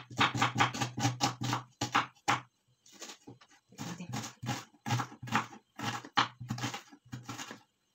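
Kitchen knife chopping an onion on a wooden cutting board: quick, even knocks of the blade on the board, about five a second, with a short pause about two and a half seconds in.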